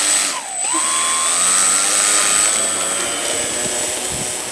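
Electric motor and propeller of a radio-controlled model plane spooling up to a high, steady whine, then slowly fading near the end.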